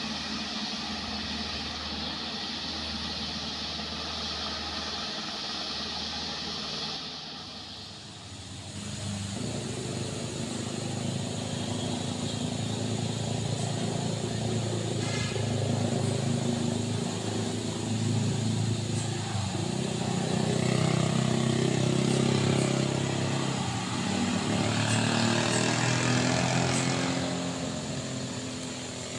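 Light diesel trucks' engines labouring on a steep uphill climb. About eight seconds in, the sound cuts to another truck's low diesel drone, which wavers in pitch and grows louder as the truck comes closer.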